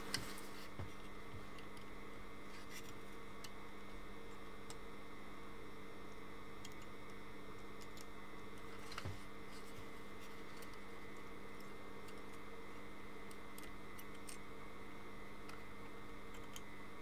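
Faint, sparse clicks of small plastic and metal parts being handled as a loose contact clip is pressed back into a multimeter's rotary switch, over a steady faint hum. A few clicks come just after the start and the clearest one about nine seconds in.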